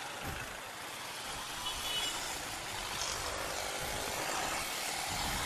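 Steady road traffic noise: a mix of passing vehicle engines and tyre rumble, with no single vehicle standing out.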